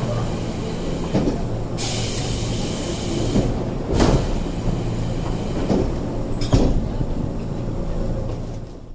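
Inside a commuter electric train car standing at a station: a steady low hum from the car's equipment, a hiss of air from about two to four seconds in, then knocks as the doors close about four seconds in, and another knock at about six and a half seconds.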